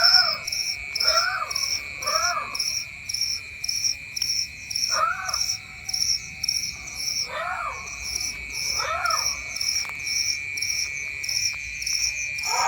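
Night chorus of crickets and other insects: a steady high trill with fast, evenly repeating chirps above it. Six times, a short call rises and falls in pitch.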